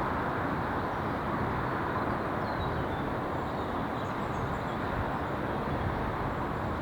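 A train running past on the line with a steady rumble of wheels on rail, easing off slightly. Faint bird chirps are heard above it.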